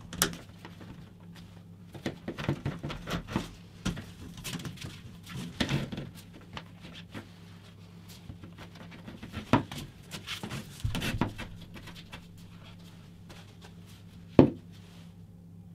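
Vacuum-hose cuffs being pushed onto and pulled off the 36 mm dust-extraction port of a Metabo SXE 425 TurboTec random orbital sander: scattered knocks, clicks and rubbing as they are handled, the loudest knock near the end. A low steady hum sits underneath.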